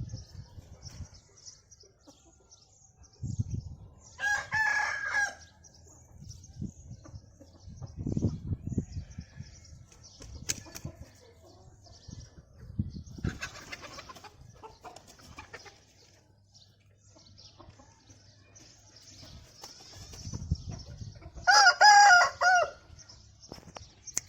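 Aseel roosters crowing: one crow about four seconds in and a louder one near the end, with a rougher call midway. Low rumbling thumps come and go between the crows.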